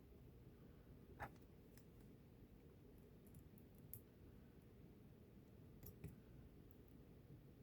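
Near silence with a few faint, light clicks: one about a second in, a cluster around four seconds and a pair around six seconds, typical of small wire parts and tools being handled on a workbench.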